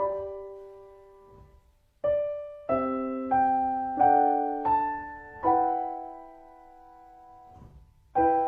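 Slow, gentle solo piano music. Single chords are struck and left to ring out, with a pause after the first, then a quicker run of chords. One long chord fades away before another is struck near the end.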